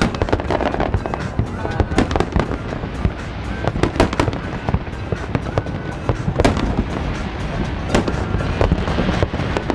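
Aerial fireworks bursting in rapid succession: a few heavier bangs about every two seconds among many smaller pops and crackles.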